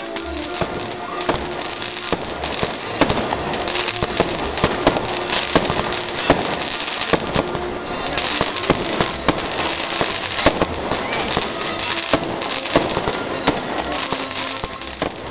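Fireworks going off: a dense run of sharp, irregular cracks and bangs, several a second, over a continuous crackling hiss. A band plays underneath.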